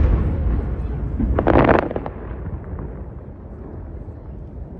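Aerial fireworks: the echoing rumble of a shell's boom fading, then a crackling burst about one and a half seconds in, after which the rumble dies away.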